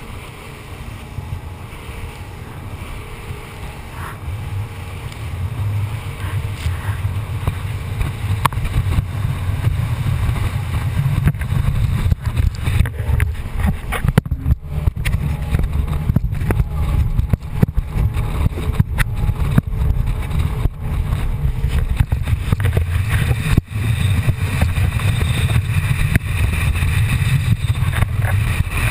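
Rigid inflatable boat running at speed, heard as a muffled low rumble through a GoPro's waterproof housing. It grows louder over the first ten seconds or so, with many short knocks and thumps throughout.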